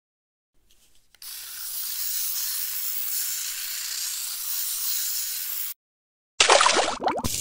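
yoose Harvester electric shaver cutting through plush fur: a steady hissing rasp for about four seconds. Near the end, about a second of loud water splashing and bubbling as the shaver head is dipped into a glass of water.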